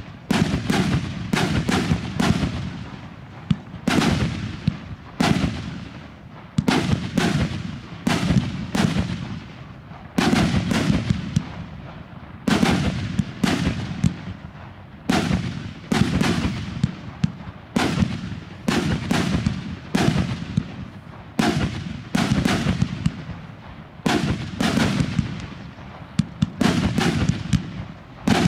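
Aerial fireworks firing: rapid launch thumps and sharp bursting bangs in quick volleys every two or three seconds, with echoes trailing off after each volley.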